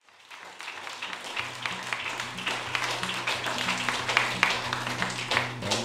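Background music fading in from silence: low held notes with a soft repeating pulse, under many scattered sharp clicks.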